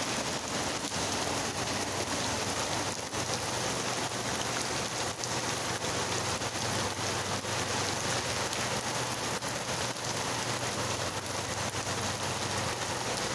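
Hail and rain falling on wet asphalt and paving stones: a steady dense patter shot through with many small sharp ticks of hailstones striking the ground.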